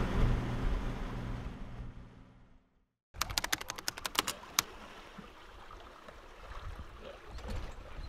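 A sailboat's inboard diesel engine running steadily under motor on a calm sea, fading out about two and a half seconds in. After a brief silence comes a quick run of about a dozen sharp clicks, then faint wind and water.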